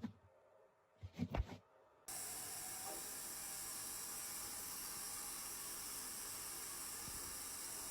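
A few brief soft sounds, then about two seconds in a steady hiss starts abruptly and carries on.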